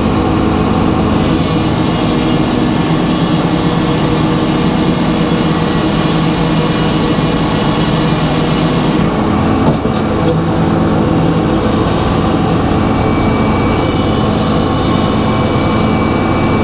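Circular sawmill running loud and steady, its blade cutting through a board from about a second in until the cutting sound stops abruptly around nine seconds in, followed by a single knock. This is the cut on which the blade's nut worked loose enough for the blade to jump past its shear pins and spin free.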